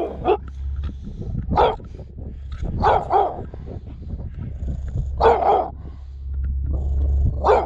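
A dog barking from the back seat of an open-top vehicle, about six short barks a second or two apart. A steady low vehicle rumble runs underneath.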